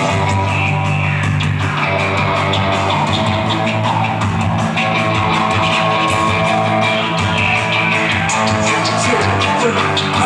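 Live rock band playing an instrumental passage: loud, distorted electric guitars over bass and drum kit.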